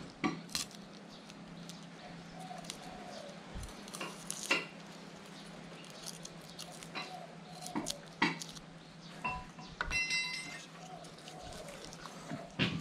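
Kitchen knife tapping and clicking on a wooden cutting board while garlic cloves are peeled and cut, with a short metallic ring about ten seconds in. A steady low hum runs underneath.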